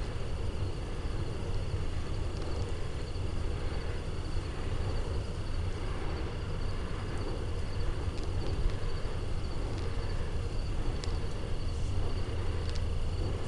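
Outdoor night ambience: a steady low rumble under a constant high chirring of night insects, with a few faint ticks.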